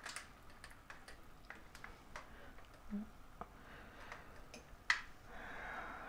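Faint clicks and light taps of plastic as the removed brew unit of a coffee machine is handled and turned over. There is one sharper click about five seconds in, and a brief soft rubbing sound near the end.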